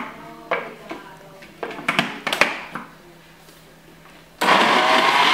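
A few knocks and clicks as the lid and jug of an electric blender are handled. About four seconds in, the blender motor switches on and runs steadily with a whine, puréeing tomato and soaked bread.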